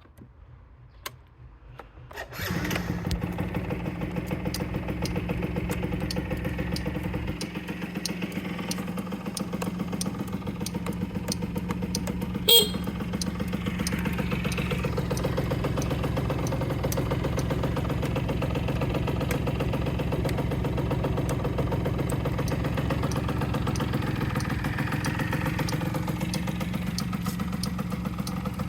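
Yamaha Basic Jog scooter's 50cc two-stroke single starting about two seconds in, then idling steadily. A single sharp click stands out about halfway through.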